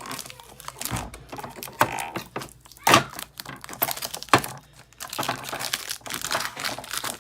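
Protective plastic film being peeled off a graphics card: an irregular crinkling and crackling, with a few sharp snaps, the loudest about three seconds in and again past four seconds.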